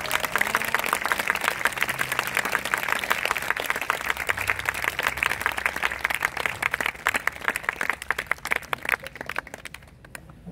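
Audience applauding, a dense stream of clapping that thins out and dies away near the end.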